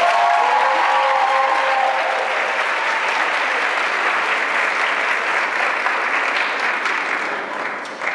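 Audience applauding after an award winner is named, with a few cheering voices over the first two seconds. The applause fades away near the end.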